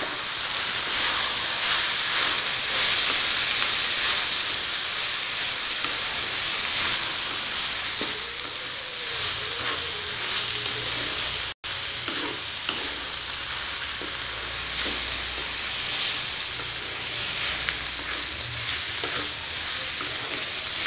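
Cluster bean and brinjal stir-fry sizzling in a pan while a spatula stirs and scrapes through it. The sound cuts out for an instant about halfway.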